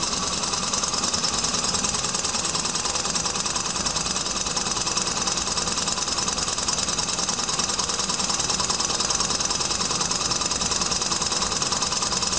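Laminar flow Stirling engine built on a stock VW cylinder with a solid graphite piston, running with a fast, steady mechanical clatter.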